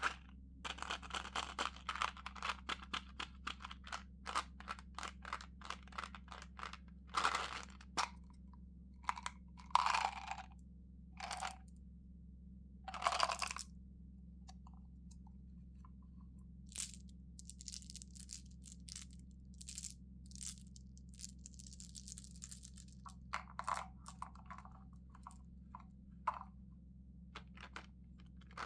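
Mentos gum packaging being handled and unwrapped: rapid crinkling ticks, then several louder rustling bursts and softer crinkles of wrapper and box.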